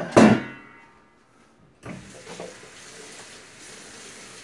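A loud clatter as the air fryer's basket is pulled out of its pan, then a kitchen tap running steadily from about two seconds in.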